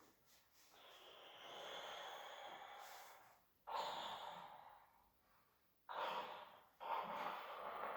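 A person breathing hard from the exertion of one-leg pistol squats: one long breath, then three sharp, forceful breaths that start abruptly about halfway through, about two seconds in from that, and once more a second later.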